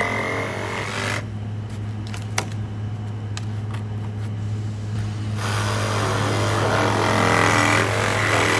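A power tool whining and running in two stretches, once at the start and again from about halfway on, over a steady low hum.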